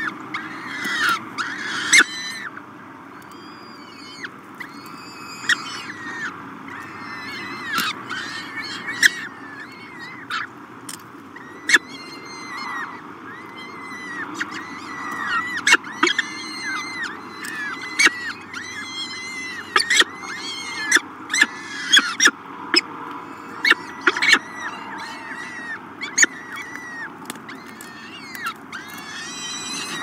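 Downy peregrine falcon chicks begging while being fed, with many short, high, repeated calls and sharp squeaks coming in quick runs, over a steady low background hiss.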